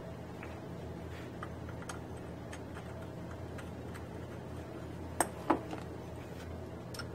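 Light metallic clicks and clinks of hand tools against a small steel part clamped in a bench vise, with two sharper clinks close together about five seconds in, over a steady low hum.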